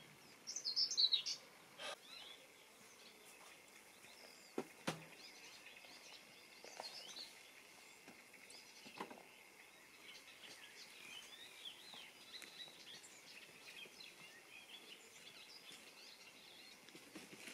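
Small birds singing and chirping faintly over a quiet outdoor background, with a clear chirpy phrase about half a second in, and a few soft knocks.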